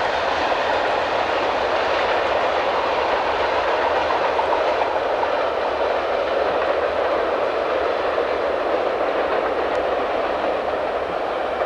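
Freight train cars rolling past on the rails, a steady, even rolling noise of wheels on track.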